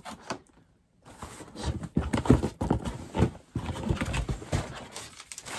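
A cardboard shoebox being opened and handled: a run of irregular hollow knocks and rustling as the lid and sides are pulled about, after a brief pause near the start.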